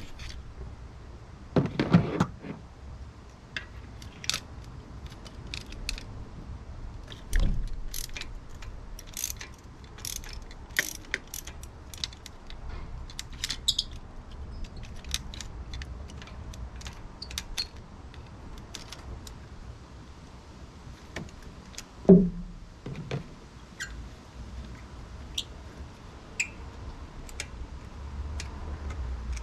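Scattered small clicks and metallic clinks of hand tools and engine parts being handled over the top of a car engine, with a few dull knocks; the loudest knock comes about three-quarters of the way in.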